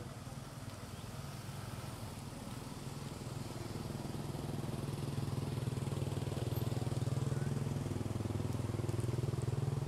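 An engine running steadily as a low hum, growing louder from about four seconds in and then holding.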